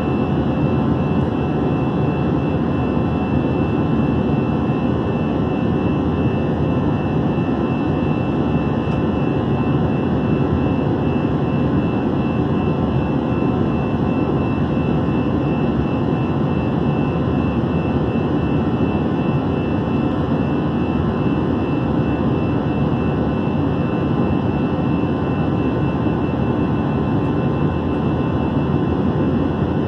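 Airbus A321-211 jet airliner cabin noise in flight: a steady, even rush of engine and airflow noise with a thin, steady high whine held throughout.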